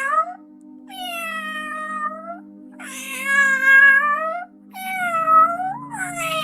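Domestic cat meowing over and over in long, drawn-out calls, about four in a row, each lasting a second or more. A low steady music drone plays underneath.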